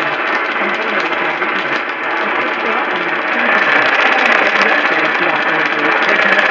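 Loud, steady radio static hiss with faint voice-like sounds buried underneath. About three seconds in, the hiss grows louder and brighter.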